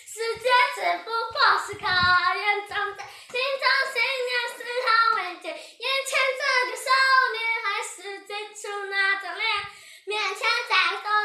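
High, child-like singing voice in a pop song, the syllables coming fast and in short phrases. It sounds thin, with almost no bass.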